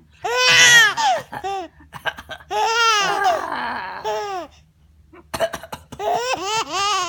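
Baby laughing in high-pitched, squealing peals, in several bursts with short pauses between.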